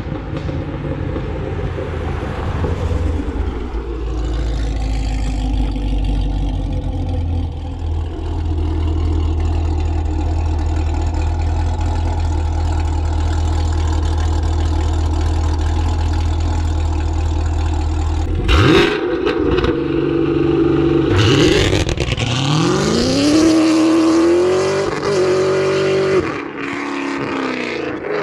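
Chevrolet Camaro SS 1LE's 6.2-litre LT1 V8 with long-tube headers, running at a steady low drone. About two-thirds of the way through there is a brief burst of noise, then the revs climb, hold for a few seconds and drop back to a steady note.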